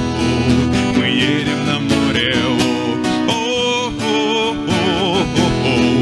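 Two acoustic guitars playing a song together, with a man's voice singing over them and holding notes with vibrato.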